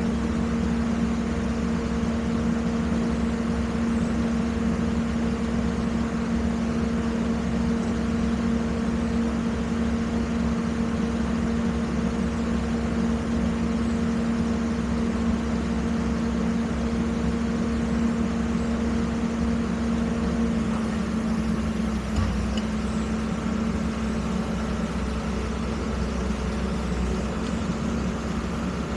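Excavator engine running at a steady speed, a constant low drone; its tone shifts slightly about two-thirds of the way through.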